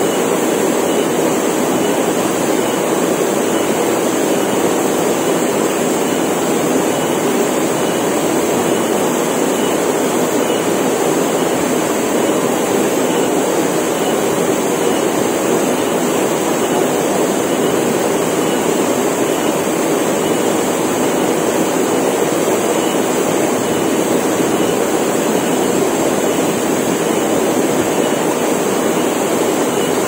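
Waterfall plunging into a rock pool, a steady unbroken rush of falling water. A steady high-pitched cicada drone sits above it.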